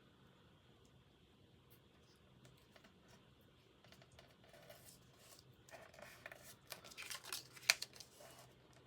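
Light rustling and small clicks of paper and cardstock being handled and pressed into place, starting about halfway through, with one sharper click near the end.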